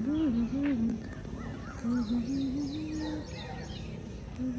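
A person humming a low tune in held, stepped notes, in two stretches and again near the end, with birds calling in runs of short, high, falling chirps.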